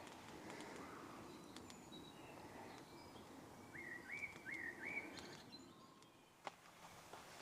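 Quiet woodland ambience with a songbird calling three quick, repeated notes about halfway through, and one faint click near the end.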